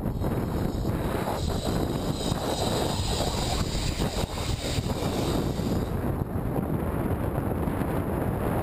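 Wind buffeting the microphone of a helmet-mounted ion Air Pro camera on a moving bicycle, a steady low rumble. A higher hiss rides over it for most of the first six seconds, then drops away.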